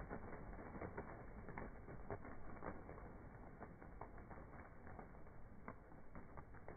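Wings of a flock of white pigeons flapping in flight: a dense, irregular clatter of soft claps.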